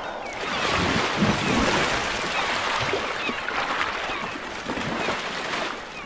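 Seawater splashing and rushing as a humpback whale breaks the surface with its mouth open, lunge-feeding.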